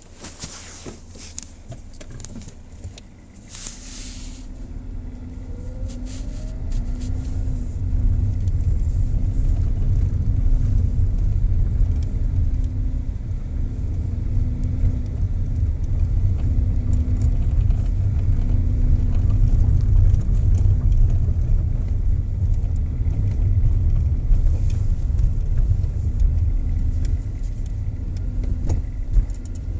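A car running, its low rumble building over the first several seconds and then holding steady, with a low hum that pulses on and off about once a second. This is the worm-shaft (trục vít) noise being checked.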